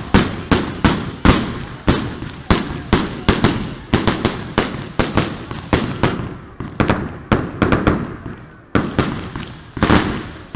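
Fireworks display: bangs from bursting fireworks in rapid succession, several a second, with a brief lull about eight seconds in before the bangs resume.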